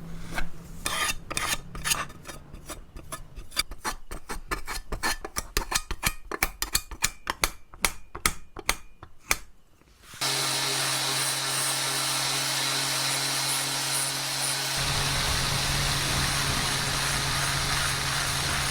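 Rapid hand strokes of a tool rubbing on a workpiece, like filing or sanding, for about ten seconds. Then a power tool cuts in suddenly and runs steadily with a hum and a high whine, its low rumble growing a few seconds later.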